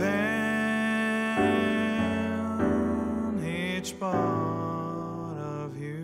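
Slow music with long held keyboard notes and chords that change every second or two.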